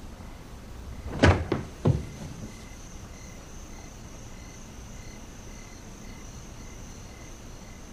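Two dull thuds from a wooden door being opened, a little over a second in, over the steady chirping of crickets.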